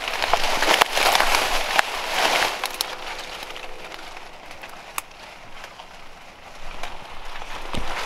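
Dry palmetto fronds and brush rustling and crackling as someone pushes through them on foot. Loud for the first couple of seconds, quieter in the middle, then loud again near the end.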